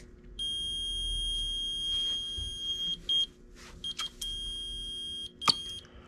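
Continuity beeper of a digital multimeter sounding a steady high beep: one long tone of about two and a half seconds, then shorter beeps that cut in and out as contact makes and breaks. This is the furnace pressure switch pulling in and closing under suction on its hose, so the switch is passing current.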